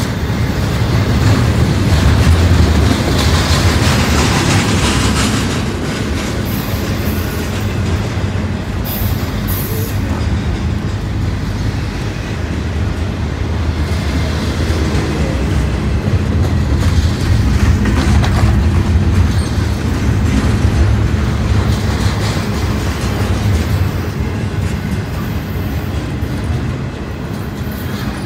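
Double-stack intermodal freight train's container well cars rolling past at close range: a continuous loud rumble of steel wheels on the rails, swelling and easing slightly as the cars go by.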